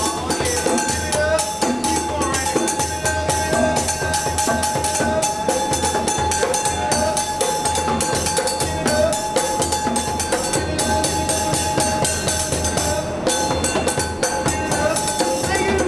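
Live percussion jam: a djembe played by hand, small metal bowls struck with a stick, and a hand-held gourd instrument, in a fast, unbroken rhythm with a faint ringing tone over it.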